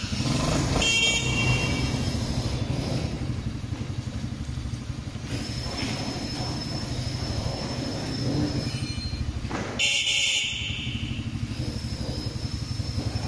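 Small engine of a new youth-size quad bike starting up and then idling with a fast, steady putter. A short burst of higher-pitched noise comes about ten seconds in.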